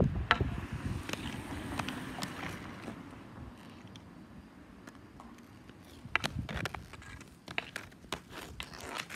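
Inline skate wheels rolling on a concrete driveway, a low rumble with sharp clicks and taps of a hockey stick and ball. It is loudest in the first couple of seconds, fades as the skater moves away, and comes back with more clicks about six seconds in.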